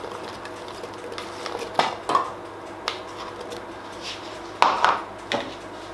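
Spatula knocking and scraping against a bowl as diced apple is tipped into a glass blender jug: a few scattered clicks and knocks, the loudest a quick pair about four and a half seconds in.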